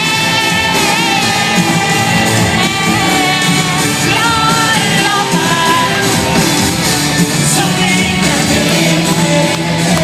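Loud music with a singing voice over a full band.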